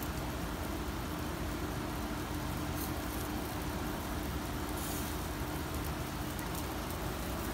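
Steady hiss and rumble of a commercial gas grill burning charcoal under yakitori skewers, with a faint steady hum and a few soft crackles.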